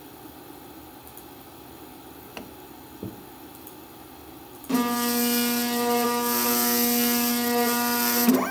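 Z-axis stepper motor of an Inventables CNC router driving the bit slowly down onto a touch-plate probe, a steady pitched whine starting about halfway through and holding level until just before the end.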